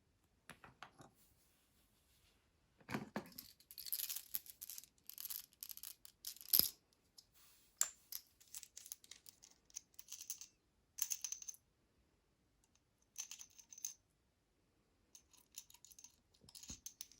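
Small metal tools scraping, clicking and tapping on a padlock's lock core as a C-clip is worked at, in irregular bursts with short pauses. One sharp metallic knock about six and a half seconds in is the loudest sound.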